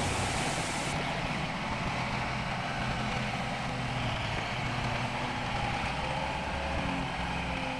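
Kubota M7040 tractor's diesel engine running steadily as the tractor drives slowly across the field.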